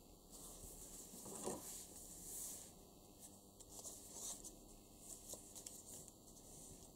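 Faint rustling and rubbing of paper under fingers as a folded card is smoothed flat and a folded paper flower is pressed onto it, with a few light scrapes, the loudest about a second and a half in.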